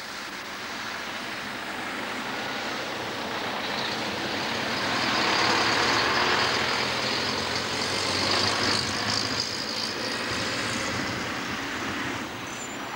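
Vintage lorries driving slowly past, engines running; the sound swells to its loudest about halfway through as a red ERF lorry comes by close, then eases off.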